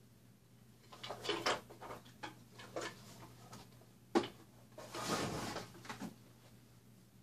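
Irregular scraping and rustling of things being handled, with one sharp click about four seconds in.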